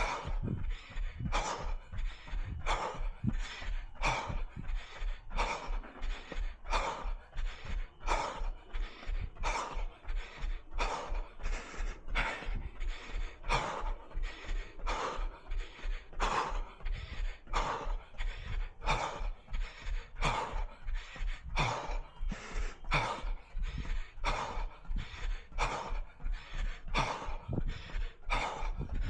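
A runner's heavy, rhythmic breathing, about one and a half breaths a second, with a steady low thud of footfalls underneath.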